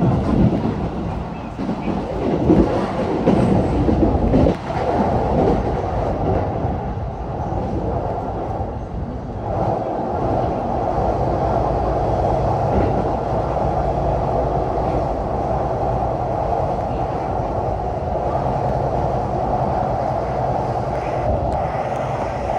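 Tokaido Line commuter train heard from inside the car while running, with a continuous rumble of wheels on rail; the noise is uneven for the first few seconds and turns steadier and fuller about ten seconds in.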